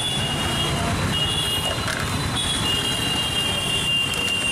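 Busy street traffic with vehicle horns sounding several times in long, high, overlapping tones.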